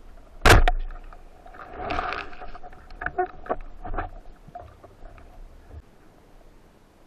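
Band-powered wooden speargun fired underwater: one sharp, loud crack about half a second in. It is followed by a noisy swell of water commotion as the speared fish struggles, then a string of knocks and clicks from the gun and shaft, which die away after about four seconds.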